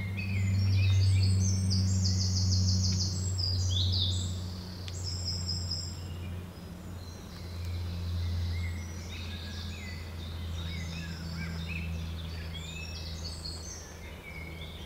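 Woodland songbirds singing, with fast high trills in the first few seconds and more scattered calls later, over a steady low hum that swells and fades.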